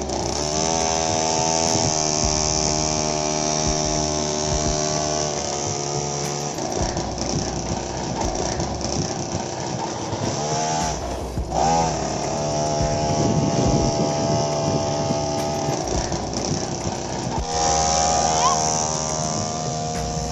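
Homemade mini tractor's motor running under load while it tows a loaded trolley, a steady whine that breaks off and climbs back up to pitch twice.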